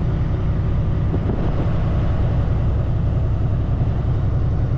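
Semi truck driving, heard from inside the cab: the engine's steady low rumble mixed with road noise.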